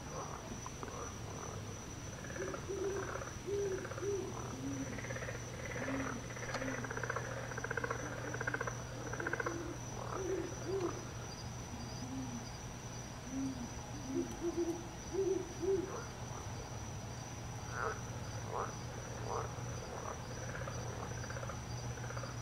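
Night chorus: low, hoot-like calls in short groups of two or three, repeated for most of the stretch and fading out before the end, over a steady high-pitched insect trill and scattered higher chirps.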